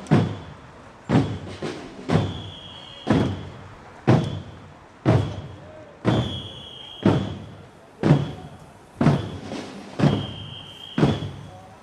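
A drum beaten in a slow, even beat of about one stroke a second, each deep stroke dying away before the next, with an occasional lighter stroke in between.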